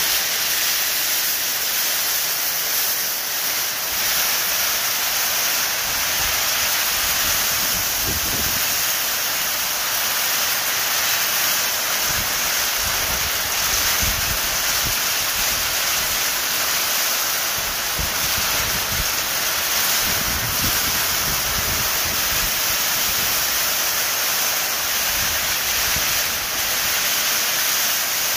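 Hailstorm: hail falling heavily in a loud, steady, dense hiss, with gusts of wind buffeting the microphone from time to time.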